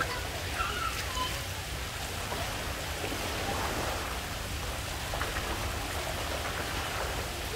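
Steady hiss of rushing and splashing pool water, with a few faint children's voices about a second in.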